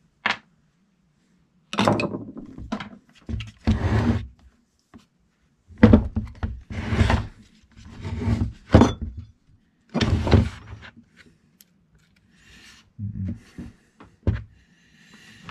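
Irregular knocks, thunks and short scrapes of hard plastic and metal parts being handled on a wooden workbench as the end housing is worked off a DeWalt DW735 planer motor.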